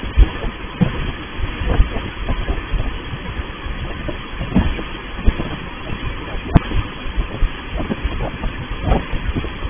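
Touchless automatic car wash machine running: a steady rushing noise with irregular low rumbling surges, with a single sharp click about six and a half seconds in. It is heard through a low-quality security-camera microphone that cuts off the treble.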